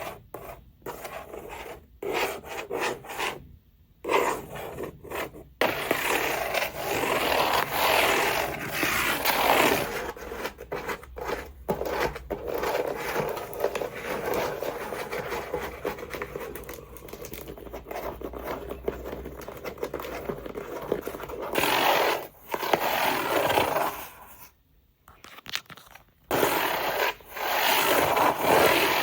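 A new tripod being unboxed, with its packaging handled close to the microphone. A few sharp clicks and taps come first, then long stretches of rubbing and scraping, broken by a short pause a few seconds before the end.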